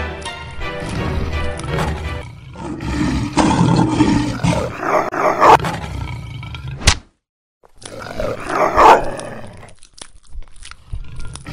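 Monster roar sound effects laid over background music, the loudest roars about five seconds in and again about nine seconds in. The sound cuts out completely for under a second about seven seconds in.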